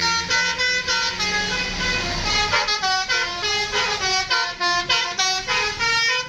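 Bus telolet horn, a multi-tone musical horn, playing a quick run of short notes that step up and down in pitch, several notes a second.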